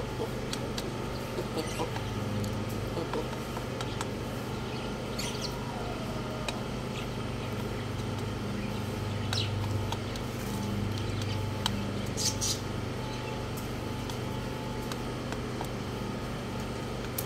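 Roosters pecking grain from a steel bowl, with scattered sharp clicks of beaks striking the metal, over a steady low mechanical hum. A few brief high chirps come through now and then.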